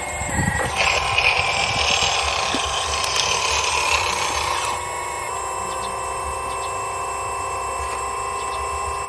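Hydraulic pump of a radio-controlled model excavator running, a steady whine made of several pitches, with a louder hiss layered on from about one second in to about five seconds in while the arm works.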